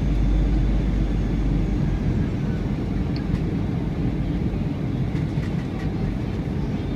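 Airliner cabin noise on final approach: a steady low rumble of jet engines and rushing air, heard from inside the passenger cabin.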